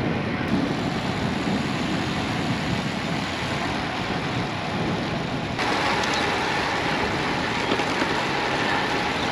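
Steady rush of wind and road noise on the microphone of a camera moving along with cyclists. It turns brighter and hissier about five and a half seconds in.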